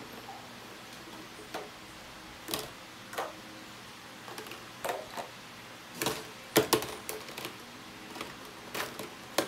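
Hard plastic clicking and clattering as baby feeding bottle parts, a plastic tray and basins are picked up and set down: a dozen or so separate knocks, the loudest a sharp pair about two-thirds of the way through.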